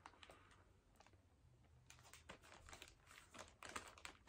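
Faint crinkling and rustling of a plastic mailer package being handled, near silence at first, then a cluster of soft crackles in the second half.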